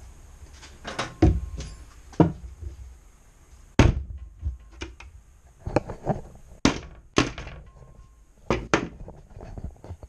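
Irregular series of sharp knocks and thunks, about a dozen, some loud, as a cabinet door with IKEA hinges is handled and fitted to the cabinet frame.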